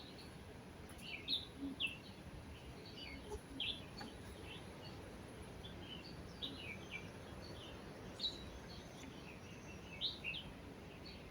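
Faint birds chirping: scattered short, high chirps, a few each second at times, over a soft background hiss.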